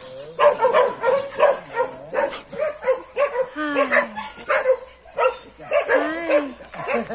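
Dogs barking repeatedly, about two or three barks a second, with two longer drawn-out cries, one about halfway through and one near the end.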